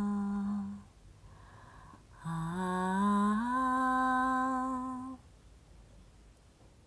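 A woman humming a slow wordless tune in long held notes. One phrase ends about a second in; after a short pause a second phrase steps upward and holds, stopping about five seconds in.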